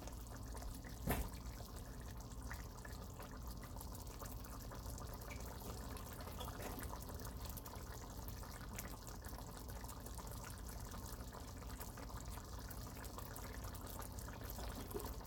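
Homemade lemon pepper sauce with onions simmering in a stainless steel skillet on the stovetop: faint, steady bubbling with fine ticking. A single knock about a second in.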